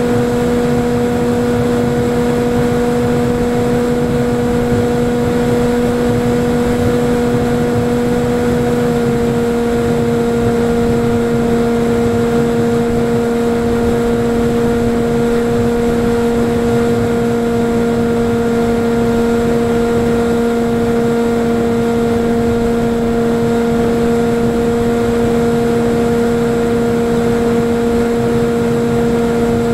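Electric motor and propeller of a Falcon Evo FPV flying wing droning at a steady cruising throttle, heard from on board the plane along with wind rush. There is a small step in pitch about nine seconds in.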